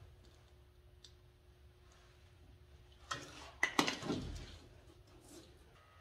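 A short clatter of knocks and clicks from tools and pipe parts being handled, about three seconds in, ending with a dull thud; otherwise faint room tone.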